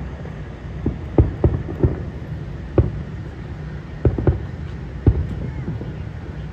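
Aerial firework shells bursting in quick, irregular succession, about ten deep booms over a steady low rumble.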